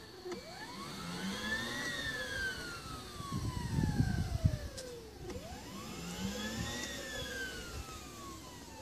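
Large scale RC helicopter running on the ground with its main rotor turning slowly: a steady high whine overlaid by tones that sweep up and then down, repeating about every five seconds. A louder low rumble comes through about four seconds in.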